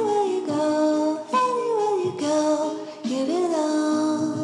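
Background music: a female voice singing slow, held notes that glide from one to the next.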